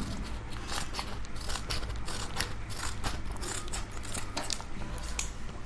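Scissors snipping and chewing at a tough paper courier packet, with crinkling of the wrapping between cuts. The thick packing resists the blades and won't cut through easily. A low steady hum runs underneath.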